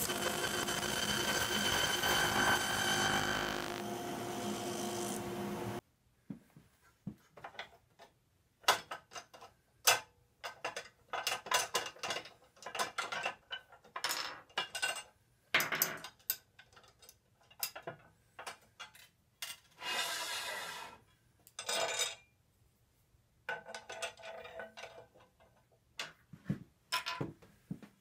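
Table saw running as a strip of wood trim is pushed along the rip fence, stopping abruptly about six seconds in. Then a string of separate clicks, knocks and short scrapes as the saw's rip fence is handled and lifted off.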